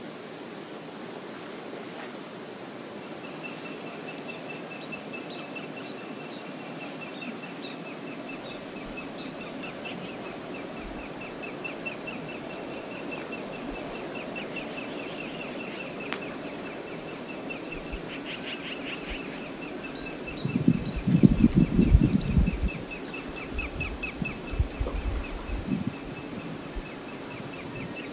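Steady rush of river water with a long, fast-pulsed high trill over it and a few brief high chirps. About two-thirds of the way in, a loud low rumble lasts about two seconds.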